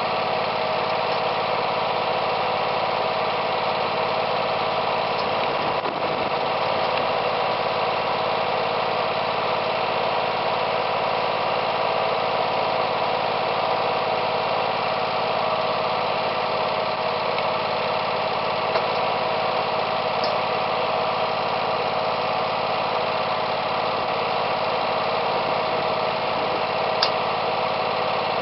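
Craftsman garden tractor engine idling steadily, with one sharp click near the end.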